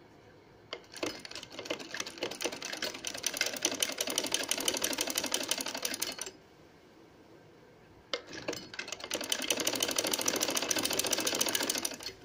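Domestic sewing machine running in two bursts of rapid, even stitching clatter as piping is sewn onto fabric. It starts just under a second in, stops about six seconds in, and after a pause of about two seconds runs again to the end.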